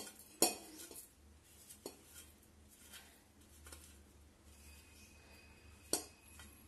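A few light, sharp clinks of stainless steel dishes, a plate knocking against a steel bowl, as fennel seeds are dropped into it by hand, with a faint low hum behind.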